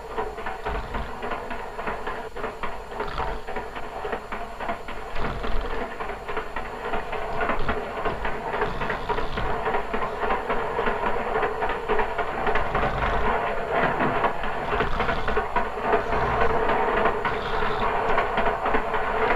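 Passenger train running: a steady rumble with rapid clickety-clack of the wheels over the rail joints.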